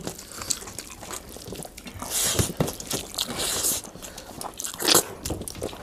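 Close-up eating sounds of people eating chicken curry and rice by hand: wet chewing and lip smacks with many small clicks. Fingers work the rice on steel plates, and a couple of longer hissing sounds come near the middle.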